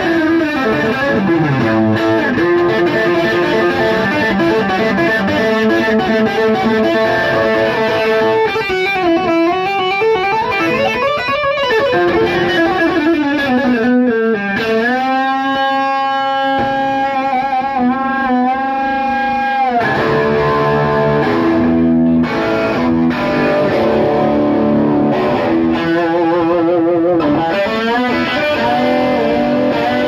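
Electric guitar played through an amplifier and effects rig: a lead line of held notes with string bends and wide vibrato.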